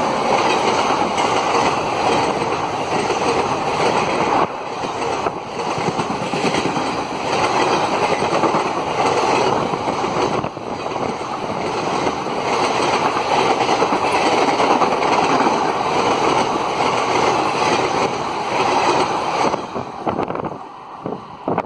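Passenger train's coaches rushing past at speed: a loud, steady rush of wheel and rail noise that falls away about twenty seconds in as the last coach goes by.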